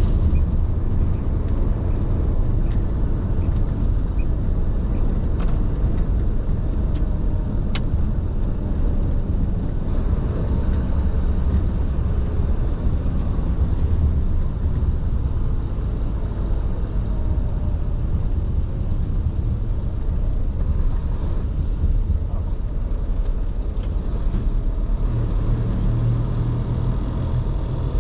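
Tractor-trailer truck driving at speed, a steady low engine and road rumble heard from inside the cab, with a few faint clicks in the first several seconds.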